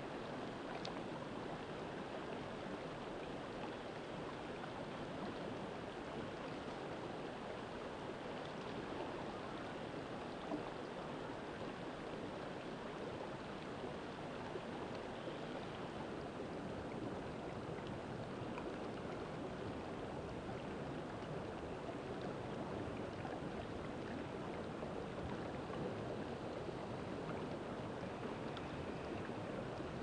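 Shallow stream running over stones in a riffle, a steady rushing of water.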